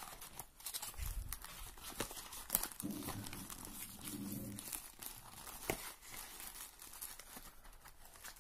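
Paper and packaging crinkling and rustling in irregular crackles and taps as a printed card, a folded user manual and thin wrapping are handled and lifted out of a cardboard box.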